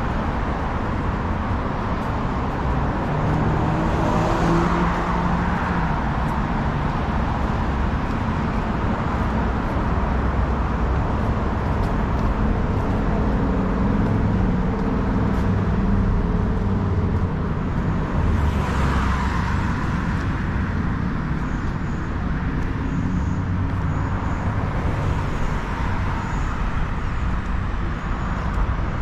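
Steady road-traffic noise from running vehicles, with swells as vehicles pass about four seconds in and again about eighteen seconds in.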